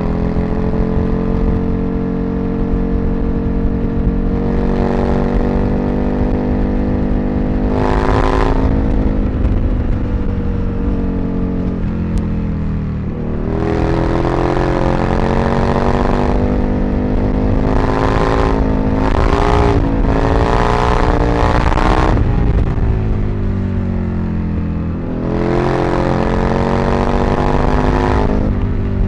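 Aprilia RSV Mille's 998 cc V-twin engine running under way, its pitch rising and falling as the throttle is opened and closed. There are several pulls, with a run of quick climbs and drops around two-thirds of the way through and another pull near the end.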